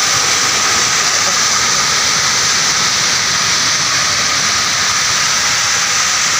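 Landslide debris, soil and rocks, pouring down a steep hillside: a steady, loud rushing hiss that does not let up.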